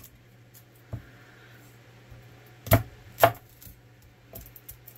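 Chef's knife chopping an onion against an end-grain wooden cutting board. There is a light knock about a second in, then two sharp chops close together near the middle and a few faint taps near the end.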